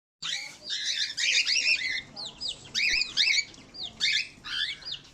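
Several parrots chirping and squawking together in quick, high, up-and-down notes, coming in bursts with short pauses.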